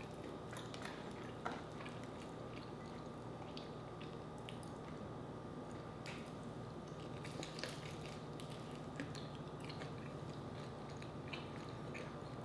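Faint, close-miked chewing of crispy fried chicken, with scattered small clicks and crackles, over a steady faint hum.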